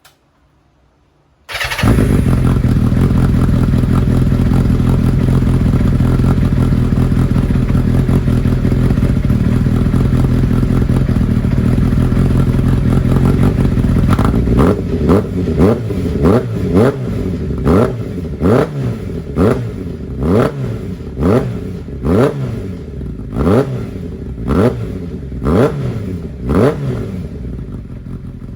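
Kawasaki Zephyr 750 air-cooled inline-four exhaust through a Nitro Racing V1 titanium slip-on silencer: the engine comes in abruptly about a second and a half in and runs steadily at idle. It then gets about a dozen quick throttle blips, each rev rising and dropping back, roughly one a second, before settling back to idle near the end.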